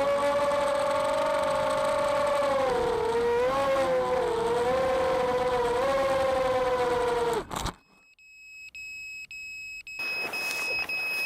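Quadcopter's four Emax RS2205-2600kV brushless motors and propellers whining hard, the pitch wobbling up and down with throttle, then cutting off suddenly with a click about seven and a half seconds in. Shortly after, a high electronic beep sounds in short pulses and then turns into a steady tone.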